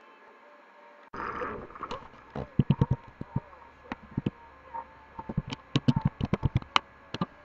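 Computer keyboard being typed on: a run of quick, irregular key clicks that starts about two seconds in and goes on nearly to the end.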